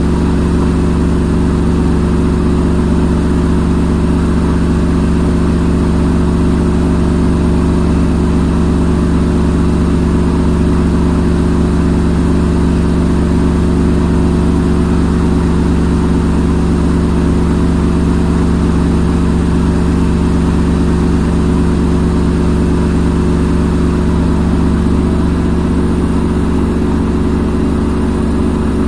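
Front-load washing machine on its spin cycle, the drum spinning at a steady speed with a constant low hum.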